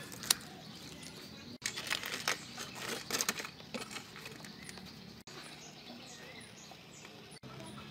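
Scissors snipping through crisp fried chicken skin, with a sharp snip just after the start, then a stretch of crackling and crunching as the crust is cut and torn apart.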